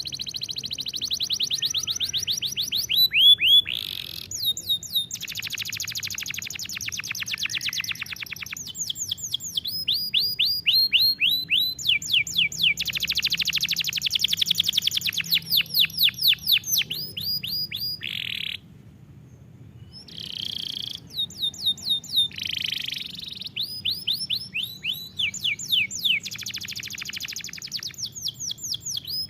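Domestic canary singing a long song of rapid trills: fast runs of repeated high notes and quick sweeping notes, changing from one phrase to the next every few seconds, with a pause of about a second and a half about two-thirds of the way through.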